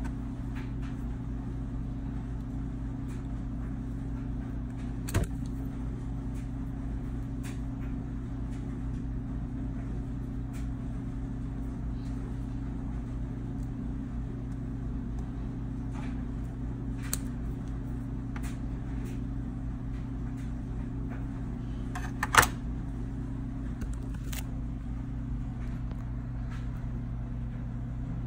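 Steady low hum with scattered light clicks and taps from metal feeler gauge blades, key rings and plastic handles being handled in a plastic tray. The sharpest clicks come about five seconds in and about 22 seconds in.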